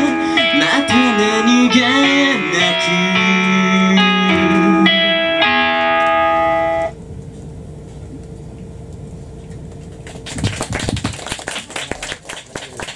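Live band of electric guitars, bass and drums playing held chords, cutting off sharply about seven seconds in. A low hum remains, then audience applause starts about ten seconds in.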